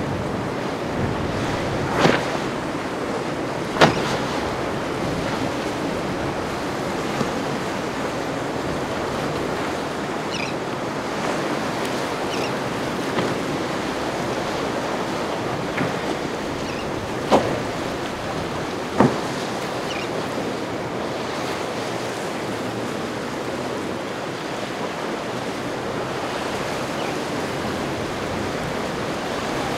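Steady wash of ocean waves and wind, broken by four short sharp knocks: two in the first few seconds and two more a little past halfway.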